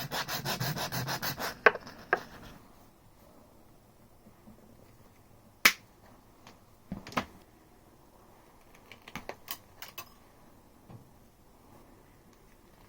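Quick, even rasping strokes of a crimp cable terminal's hole being enlarged by hand; they stop about two seconds in. After that come a few scattered light clicks and taps of small parts being handled.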